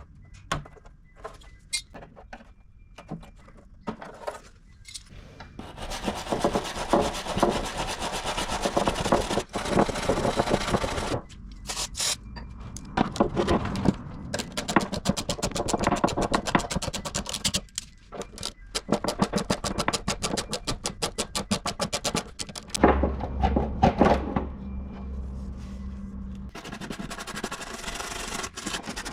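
Scrubbing and scraping on old steel car wings to clear off rust and underseal, in rapid repeated strokes. A few scattered knocks come first, and a steady low hum comes in near the end.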